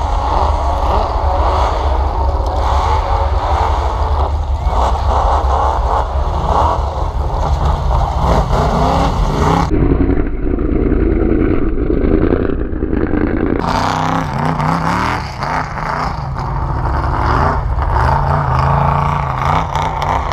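Engines of off-road trucks revving and running, rising and falling in pitch, over a constant heavy low rumble.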